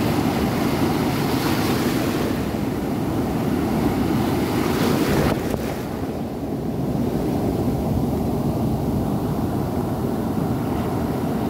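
Ocean surf breaking and foaming water washing over a rocky shore: a steady, loud rush. The bright hiss of the wash fades sharply about five seconds in, leaving a lower rumble.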